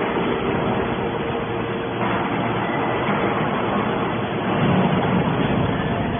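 Scrap metal processing machinery running, a dense steady mechanical noise over a low hum, swelling louder briefly near the end.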